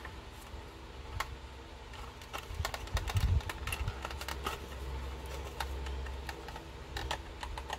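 Scattered light clicks and taps of a plastic model car body being handled and turned over in the hands, with a few low bumps.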